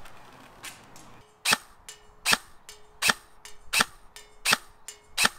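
KWA KM4 airsoft electric rifle firing six single shots in a steady string, about one every three quarters of a second, each a short sharp report.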